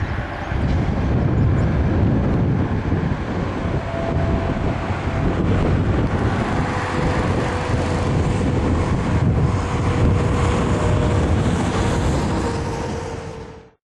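Wind noise on the microphone over the steady hum of traffic on a distant highway, fading out near the end.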